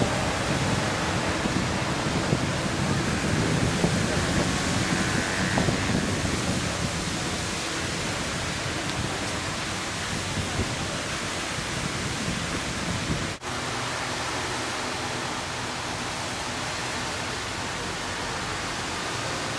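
Steady rushing of water gushing from a burst water main, spraying up as a jet and pouring down a bank into a canal. The rush breaks off for an instant about two-thirds of the way in and carries on slightly lower and steadier, with a faint hum underneath.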